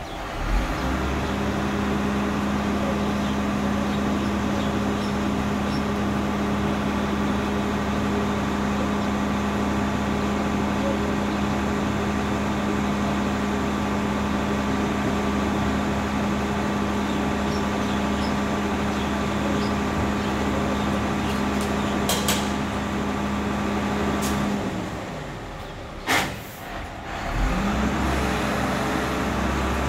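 Rear-loader garbage compactor truck running with a loud, steady drone from its engine and hydraulics. The drone drops away for about three seconds near the end, with a couple of sharp knocks, then comes back.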